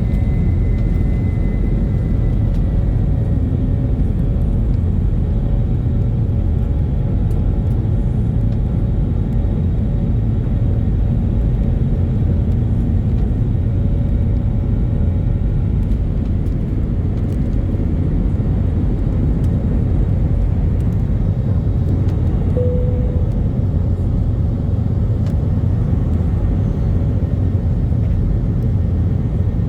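Steady rumble of an airliner's engines and airflow heard inside the passenger cabin, a loud even drone with a faint hum above it.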